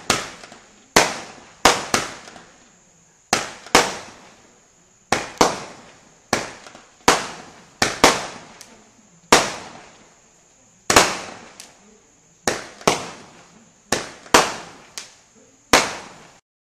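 Benwell Crown Jewels 12-shot firework cake firing: some twenty sharp bangs at uneven spacing as the shots launch and their small shells burst overhead, each bang trailing off before the next. The sound cuts off suddenly near the end.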